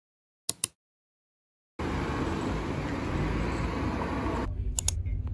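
Two short clicks, then from about two seconds in a steady hiss of outdoor street ambience with road traffic, which cuts off suddenly near the end into a quieter background with a couple of clicks.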